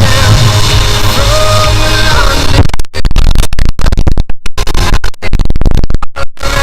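Loud background music: a song that turns choppy about two and a half seconds in, cutting in and out rapidly like a stutter or scratch effect.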